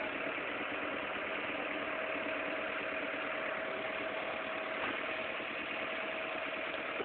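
Vehicle engine idling steadily, with a faint steady whine over a rushing noise.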